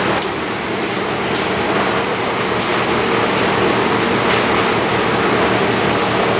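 Steady, loud machine hiss with a constant low hum, unchanging throughout.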